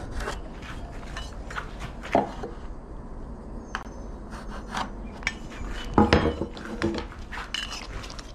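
Scattered knocks and clinks of a straight edge and other marking tools being handled and laid on the desk top, the loudest knocks about two seconds in and about six seconds in.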